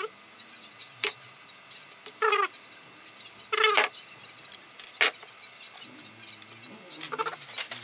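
Several short pitched, animal-like calls, each under half a second and spaced a second or more apart. Between them come a couple of sharp clicks of small tools set down on a wooden workbench.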